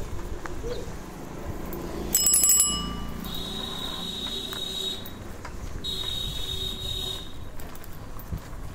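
A bicycle bell rung briefly about two seconds in, a quick metallic ringing. It is followed by two long high-pitched electronic beeps, each a second or more, over the low rumble of street traffic.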